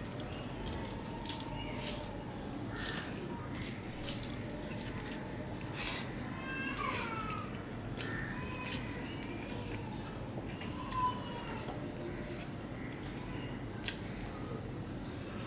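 Fingers squishing and mixing rice and curry on a steel plate, with light clicks against the metal, then a handful eaten and chewed. A short falling animal call sounds about halfway through.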